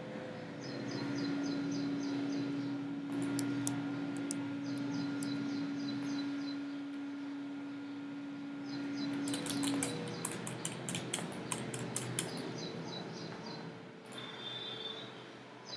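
Birds chirping in the background in repeated short high trills, over a steady low hum that stops about ten seconds in. A run of light clicks follows.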